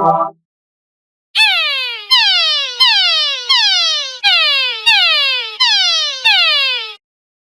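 A falling-pitch electronic sound effect repeated eight times in quick succession, each tone buzzy and sliding down about an octave in under a second, after about a second of silence.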